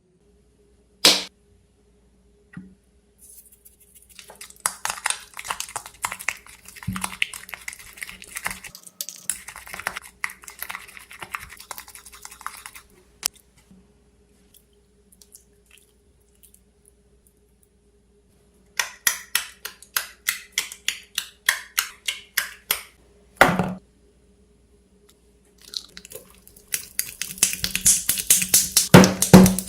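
Homemade toothpaste slime squeezed and pressed by hand: sticky crackling and popping clicks. A run of squelches comes about two a second in the middle, and dense clicking near the end.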